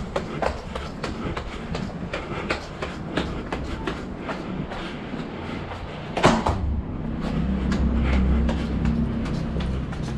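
A runner's footsteps climbing stairs, quick regular steps at about three a second. About six seconds in there is a sharp knock, then a low rumble swells and fades.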